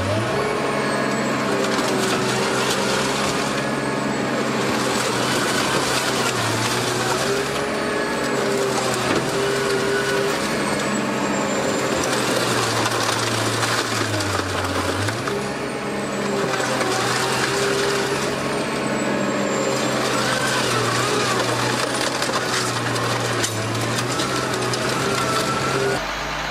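Heavy machinery at work: an engine running steadily under a whine that rises and falls in pitch every few seconds, with crushing noise throughout.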